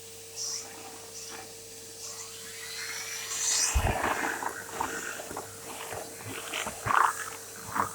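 Henry Pets bagged cylinder vacuum cleaner running with a steady hum while the pet tool is worked. About four seconds in there is a thump, followed by irregular knocking and rustling as the tool is pushed over a surface.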